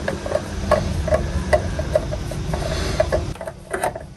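Rubbing and low rumbling handling noise as a spin-on fuel filter is twisted loose by hand, stopping a little after three seconds in. A steady light ticking, about two to three ticks a second, runs under it.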